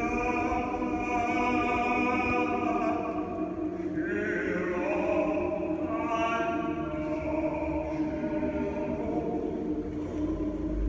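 Male choir singing a Russian folk song a cappella: long held chords, with new sung notes starting about four and about six seconds in.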